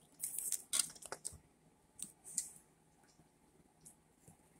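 Paper being handled: a few short clusters of crinkles and clicks in the first half, then two or three single ticks near the end.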